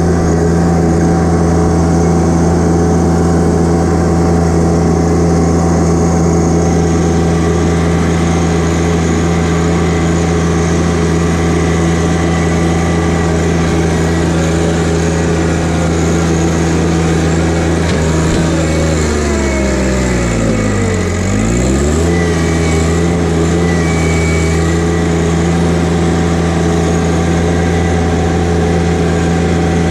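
John Deere 1025R compact tractor's three-cylinder diesel engine running steadily at high speed; about twenty seconds in the engine speed drops sharply and then climbs back up.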